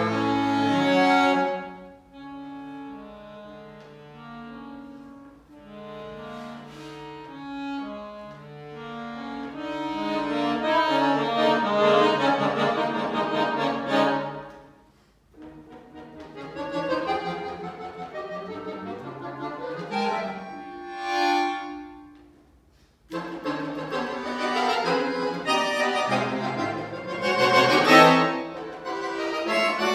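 Solo accordion playing: held chords and slowly shifting notes that swell and fade. It breaks off briefly about halfway through and again about two-thirds of the way in, then comes back in a dense, loud passage.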